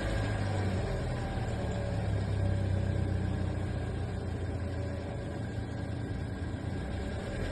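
2016 Kia Forte engine idling just after a cold start: a steady low hum with a faint steady whine above it. This is the intermittent cold-start noise the owner is asking about.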